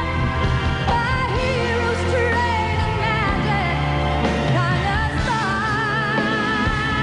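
A female singer's sustained notes and sliding vocal runs with wide vibrato over live band accompaniment.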